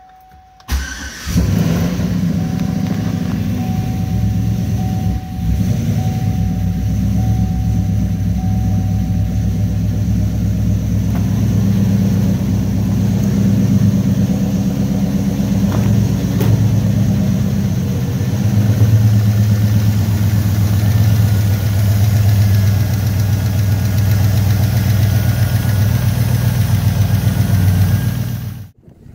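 Turbocharged 5.3-litre LS V8 in a 2007 Chevy Avalanche starting about a second in, then idling steadily, before the sound cuts off abruptly near the end.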